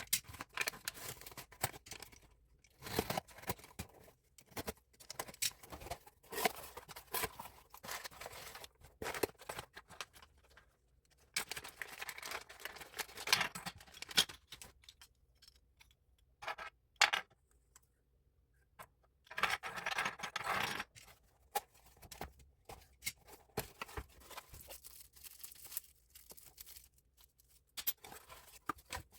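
Packaging being opened and handled: irregular bursts of rustling, tearing and scraping with clicks and short pauses, the longest rustling spells about halfway through and again a little later.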